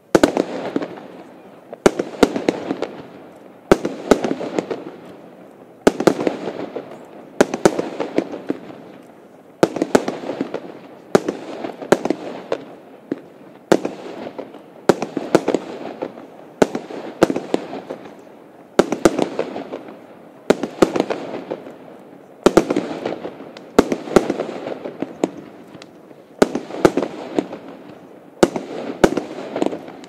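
Lesli Blizzard Storm firework cake firing shot after shot, about one every one and a half to two seconds. Each is a sharp bang followed by a fading crackle of glittering stars.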